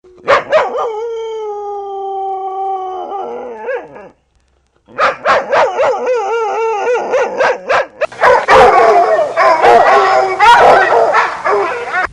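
Canine howling: one long held howl of about four seconds that drops in pitch at the end, then after a short break, wavering howls that grow busier and overlap toward the end.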